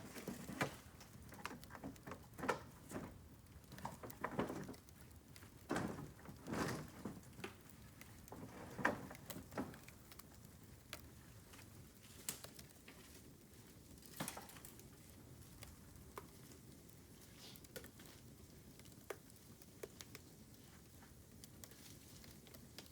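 Bamboo bonfire and dry bamboo being handled: irregular rustles and knocks for about the first ten seconds, then only scattered sharp crackles and pops.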